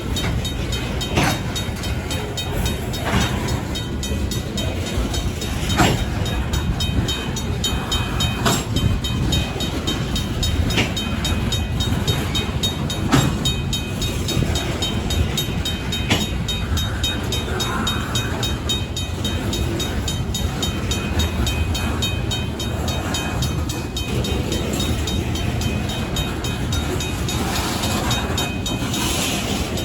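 Slow-moving freight train rolling over a railroad grade crossing. Its wheels rumble steadily and give a sharp clunk every two to three seconds, while the crossing's mechanical bell keeps ringing.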